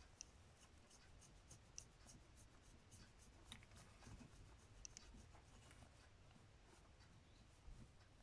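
Near silence, with faint scattered clicks and scratches of small carburetor parts, a cable adjuster and its nut, being handled; the ticks come mostly in the first two seconds, with a few more around the middle.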